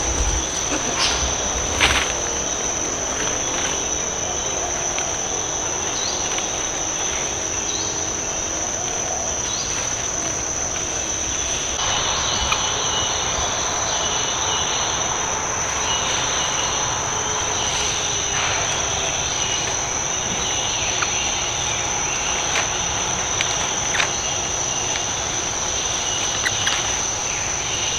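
Tropical forest insects droning in one steady, high-pitched tone, with a busier chirping layer joining about twelve seconds in and a few sharp clicks.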